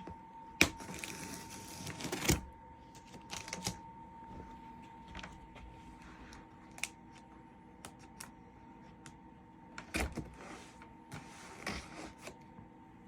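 A cardboard package being opened and handled by hand: a sharp click, then a couple of seconds of rustling and scraping that ends in a thump, followed by scattered clicks and rustles, with a faint steady whine underneath.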